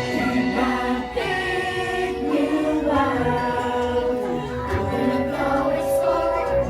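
Music with a choir singing wordless, sustained voices, playing on a dark ride's soundtrack.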